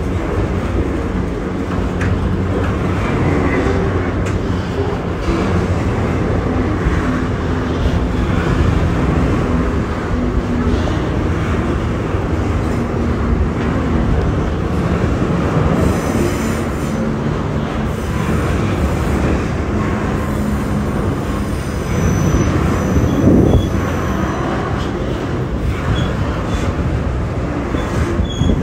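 Freight train of loaded double-stack container wagons rolling along the track: a steady rumble of wheels on rail with the low hum of a diesel locomotive engine. Faint high wheel squeals come in past the middle.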